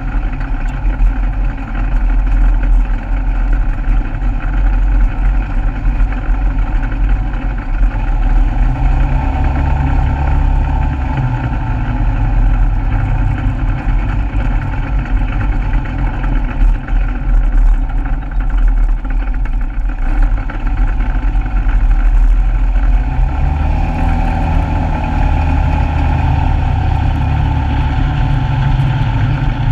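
Polaris RZR side-by-side's engine running steadily while driving, heard close from a camera mounted on the vehicle, with a strong low rumble. The engine note swells about eight seconds in and again from about twenty-three seconds.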